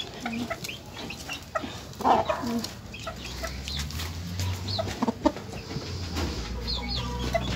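Chickens, a rooster and silkie hens, clucking in short scattered calls as they peck at feed, the loudest call about two seconds in. A low steady hum comes in about three seconds in.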